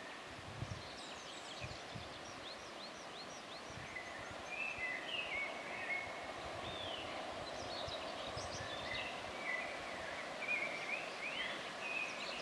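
Songbirds chirping and whistling in quick rising and falling notes over a steady rumble that grows slightly louder as a distant 2M62U diesel locomotive hauling a train approaches.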